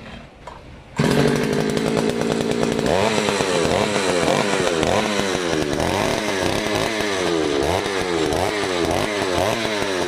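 Gasoline earth auger's small two-stroke engine starting suddenly about a second in, running steady briefly, then revved up and down over and over as it is test-run.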